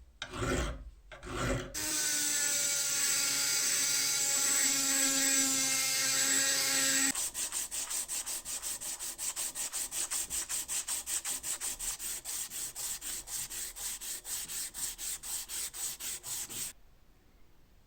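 Round file rasping on the steel head of an old rusty cobbler's hammer, cleaning off rust. A few separate strokes come first, then about five seconds of steady scraping with a ringing pitch. Then rapid, even strokes follow at about five a second and stop about a second before the end.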